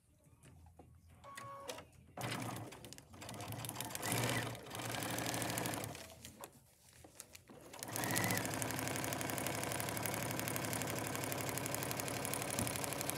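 Baby Lock Crescendo sewing machine stitching a seam through fabric and foundation paper: it starts about two seconds in with short uneven runs, pauses briefly, then runs steadily at a fast, even stitch rate from about eight seconds on.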